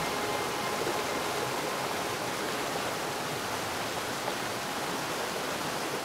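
Mountain creek running fast over rocks: an even, steady rush of flowing water.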